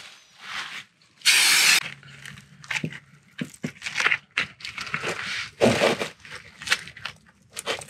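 A loud, short hiss about a second in, then irregular clicks, knocks and rustling of tools and parts being handled during work on the N55 engine's oil filter housing.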